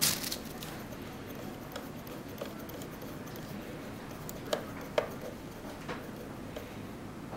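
Small screwdriver turning the screws of a plastic terminal block, giving scattered light clicks and ticks, with a sharper click at the start and two more about four and a half and five seconds in.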